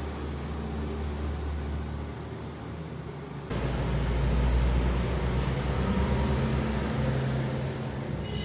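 Ceiling fan running: a steady motor hum with rushing air, which turns suddenly louder about three and a half seconds in.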